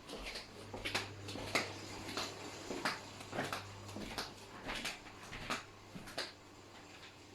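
Footsteps in flip-flops on a hard floor: a steady series of sharp slaps, about two a second, that stops near the end.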